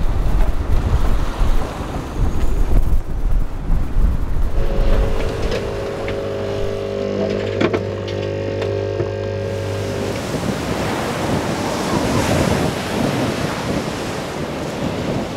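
Wind and waves rushing past a sailing yacht, then a capsule coffee machine's pump humming steadily for about five seconds as it brews into a mug, then the rush of wind and sea again.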